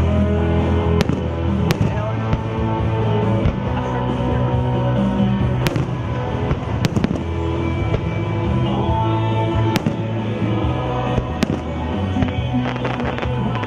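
Fireworks bursting in sharp bangs every second or two over music from a show soundtrack playing on outdoor loudspeakers, with a steady bass line.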